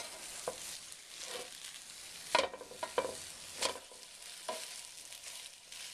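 Egg-battered sandwiches frying in a Copper Chef square pan: a steady sizzling hiss, with a few short sharp clicks from about two seconds in.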